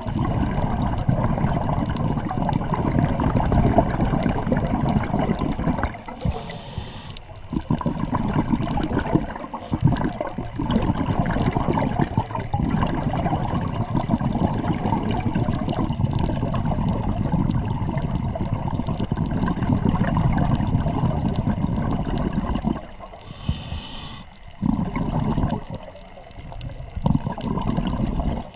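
Underwater rumble of scuba-diving bubbles and water moving past the camera. It breaks off briefly twice, with a short higher hiss about seven seconds in and again near the end.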